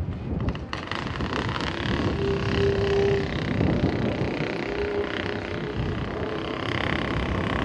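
Distant jet noise from an F-22 Raptor's twin turbofan engines on its landing approach: a steady rumble that brightens into a louder hiss about a second in.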